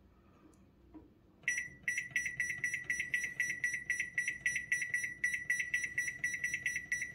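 Microwave oven's keypad beeper giving a rapid, even string of short high beeps, several a second, as the time-up button is held and the cooking timer counts up. The beeping starts about a second and a half in.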